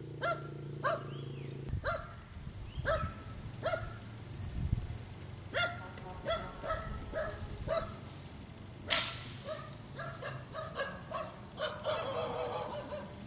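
A dog barking repeatedly, short sharp barks about once or twice a second, with one loud harsh bark about nine seconds in and quicker barking near the end. A low steady drone stops about two seconds in.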